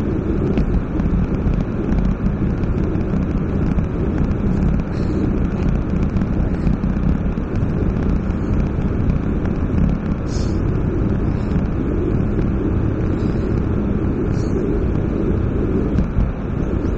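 Wind buffeting the microphone of an Insta360 ONE X2 camera on a gravel road bike going downhill at speed: a steady, loud low noise with no let-up.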